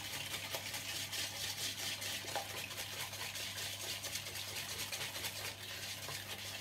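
A flexible whisk beating eggs, sugar and cornstarch in a plastic microwave pitcher: quick, steady swishing and scraping strokes against the pitcher's wall.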